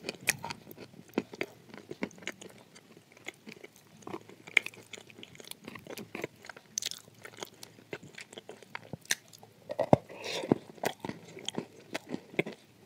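A person biting and chewing chunks of dry clay: irregular, crisp crunches throughout, with the loudest bites about ten seconds in.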